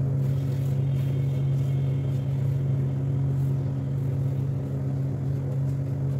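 A steady low hum from some running machine or appliance dominates throughout. Over it come faint, light rustles as fried sev is sprinkled by hand onto the rolled-out dough.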